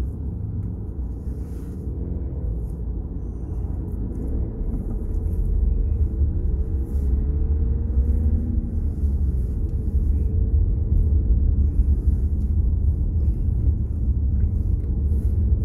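Low car engine and road rumble heard from inside the cabin, growing louder about five seconds in as the car gets moving.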